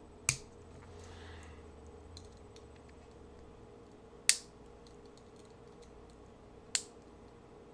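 Three sharp clicks a few seconds apart from a cheap Swiss Army-style knock-off pocket knife. A stiff tool snaps back into the handle as each attempt to pry it out fails.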